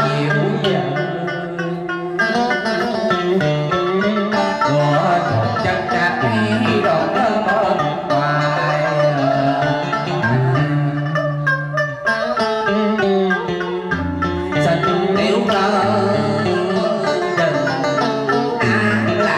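Live Vietnamese traditional cải lương music with plucked strings melodic over a low bass line of held notes that changes every second or so.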